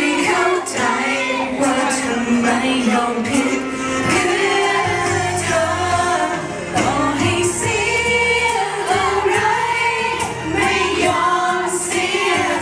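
Several voices singing a Thai pop ballad together into microphones over musical accompaniment, amplified through loudspeakers; a low bass line joins about five seconds in.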